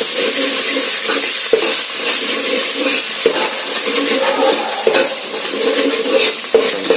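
Chopped onion, garlic, curry leaves and coriander sizzling in hot oil in a pan while a spoon stirs them, with a sharp scrape against the pan about every second and a half.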